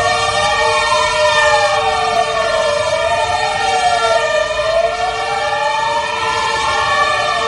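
Emergency-vehicle sirens wailing, at least two overlapping and out of step, each slowly rising and falling in pitch over a few seconds, with a steady tone beneath them.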